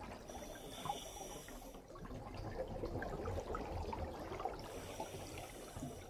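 Muffled water noise recorded underwater: low sloshing and rumbling with faint scattered ticks.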